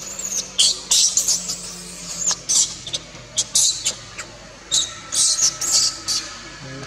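Baby macaque crying in a string of short, high-pitched squealing screams, about one or two a second: distress cries of an infant macaque.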